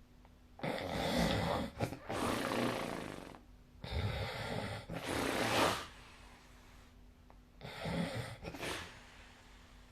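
A person snoring in three loud breaths about three and a half seconds apart, each in two parts, a rattling draw followed by a breathy second half. The snore flutters, going 'buru-buru-buru'.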